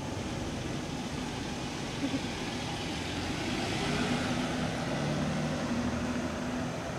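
A passing SUV's engine and tyre noise, swelling to its loudest about four to five seconds in and then easing off.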